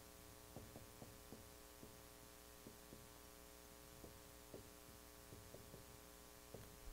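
Near silence: a steady electrical hum, with faint irregular ticks and scrapes from a marker writing on a whiteboard.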